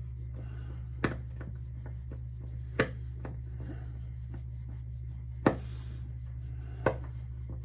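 Four sharp clicks and knocks, spaced unevenly a second or more apart, from hands working screws and hardware at a wall faceplate, over a steady low hum.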